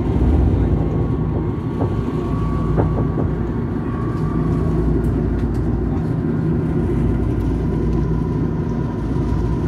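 Eurotram running along its track: a steady low rumble with a faint high whine that comes and goes, and a few faint clicks about two to three seconds in.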